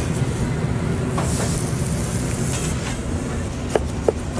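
Steady rumble and hiss of a commercial kitchen around a flat-top griddle. Near the end, two short sharp knocks a third of a second apart as a knife cuts through the wrap onto a cutting board.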